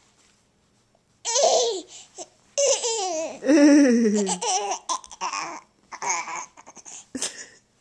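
Baby laughing in several loud bursts with short breaks between them, starting about a second in.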